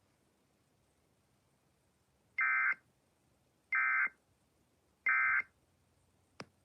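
Three short Emergency Alert System end-of-message data bursts (the SAME "NNNN" code), evenly spaced about a second and a half apart, signalling that the tornado warning broadcast is over. A small click follows near the end.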